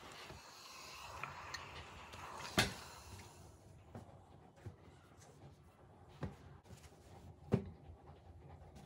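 Household handling sounds: a steady hiss that dies away about three seconds in, and a few separate sharp knocks, like a cupboard door or objects being set down, the loudest at about two and a half seconds and again near the end.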